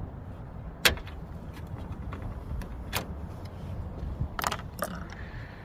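Hard plastic clicks and knocks from a 2009 Chevy Cobalt's headlight assembly and bumper tab being worked loose by hand: a sharp click about a second in, another near three seconds, and a brief rattling scrape near the end.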